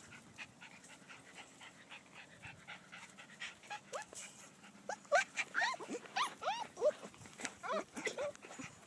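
Border Collie puppies yipping and whining in a rapid string of short, high calls, each rising and falling in pitch, starting about halfway through after a few seconds of faint rustling and clicks.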